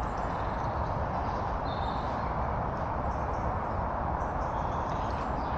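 Steady rushing outdoor background noise with a few faint bird chirps high above it.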